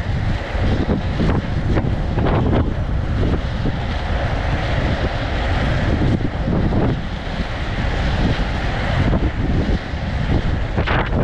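Heavy wind buffeting the microphone of a camera moving at inline-skating speed: a continuous rumble and hiss with gusty swells.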